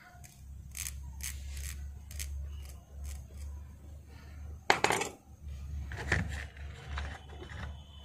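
Small hard clicks and taps of repair tools being handled and put down on a workbench, the sharpest a little before five seconds in, over a low steady hum.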